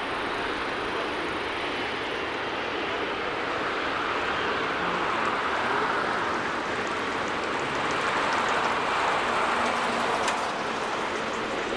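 Jet airliner engine noise: a steady rushing sound that swells in the middle of the stretch and eases off toward the end.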